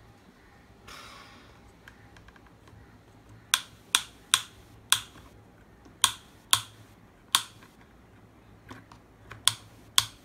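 Hard plastic toy excavator being handled on a plastic toy dump truck: a short scrape about a second in, then about nine sharp plastic clicks at uneven spacing as its arm and body are moved.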